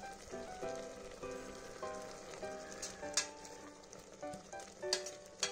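A pot of dal and moringa leaves bubbling at a boil, with soft melodic background music over it. A ladle clinks against the steel pot a few times as the mix is stirred, sharpest a little after 3 seconds and again near 5 seconds.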